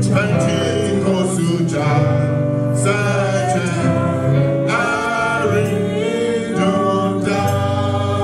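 Gospel singing with instrumental accompaniment: held low notes under a melody sung in phrases.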